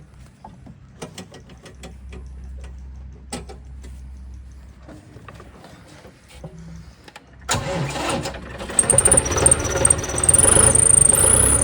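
A few light clicks and knocks, then about two-thirds of the way through the John Deere 5210 tractor's diesel engine starts up suddenly and runs loudly with its silencer removed.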